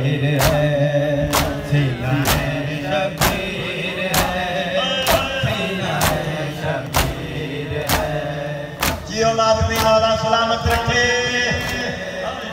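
Male voices chanting a noha, a Shia lament, over a crowd's matam, rhythmic chest-beating in unison that lands as a sharp slap about once a second.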